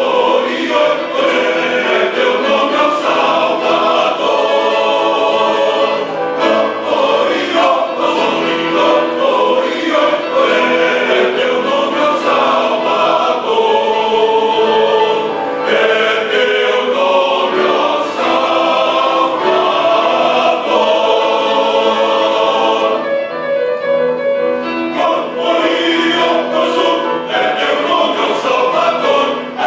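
Church choir singing a hymn, many voices together, with the sound thinning briefly about two-thirds of the way through before the full choir returns.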